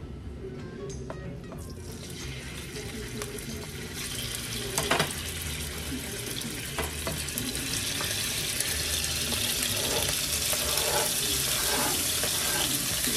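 Diced raw chicken breast sizzling as it hits hot oil in a frying pan, the sizzle setting in about two seconds in and growing louder. One sharp knock about five seconds in.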